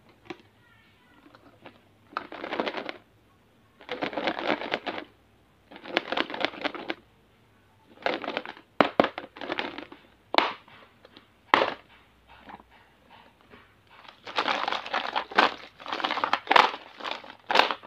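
Wrapped candies rustling and crinkling as a plastic lunch box full of them is handled. Sharp plastic clicks come in the middle, as the box's lid latches snap open, followed by a longer stretch of crinkling wrappers near the end.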